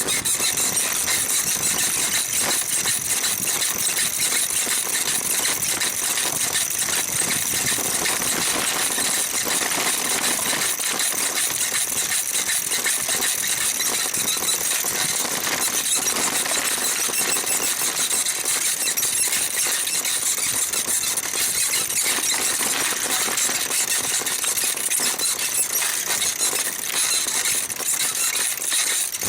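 Small rebuilt Mifa bicycle saddle squeaking and rubbing in fast, unbroken repetition as someone rocks on it.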